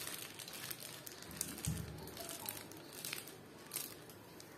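Plastic piping bag filled with whipped cream crinkling in short, irregular rustles as it is squeezed and folded by hand, with a soft low bump about a second and a half in.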